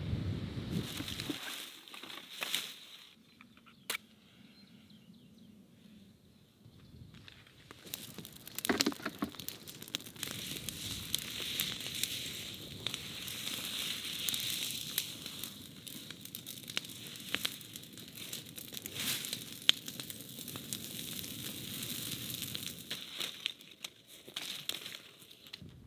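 Brush-pile fire burning, crackling steadily with many small sharp pops through most of the clip; the first several seconds are quieter, with only a few isolated knocks.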